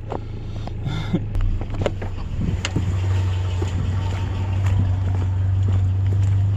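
Vehicle engine running with a steady low drone, growing louder about a second and a half in and then holding steady.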